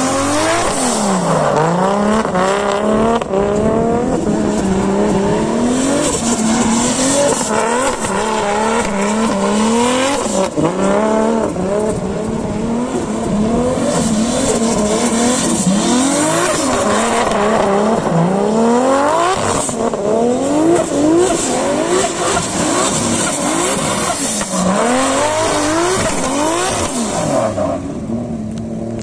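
Nissan Silvia S14 drift car's engine revving hard, its pitch climbing and dropping back every second or two as the throttle is worked through the slide, with the tyres screeching. The tyre noise fades near the end.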